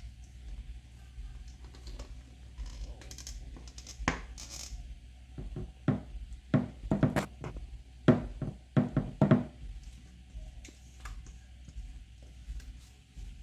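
A silicone spatula scraping thick batter out of a stainless steel mixing bowl. Between about 4 and 9.5 seconds in comes a run of sharp knocks and scrapes as the spatula strikes the bowl, with a low steady hum underneath.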